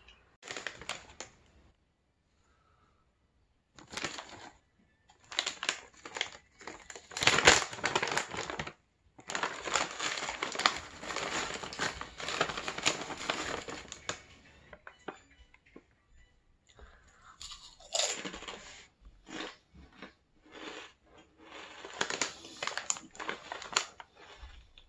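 Shiny plastic snack bag of Crispers crackers being torn open and crinkled, in irregular bursts of rustling and tearing.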